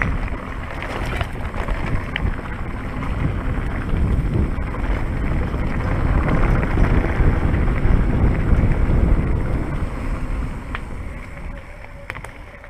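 Wind rushing over the microphone of a mountain bike's camera at speed on a fast trail section, a deep buffeting rumble with a few light clicks. It grows louder to a peak about two-thirds of the way through, then dies down near the end.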